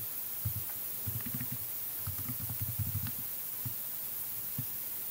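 Computer keyboard typing in several quick bursts of dull key taps, a short name being typed.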